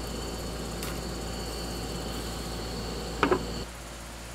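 Steady hiss of a portable gas stove burner heating a steamer basket of stones with squid grilling on them, with a short louder burst about three seconds in. Just before the end it drops suddenly to quieter, steady background ambience.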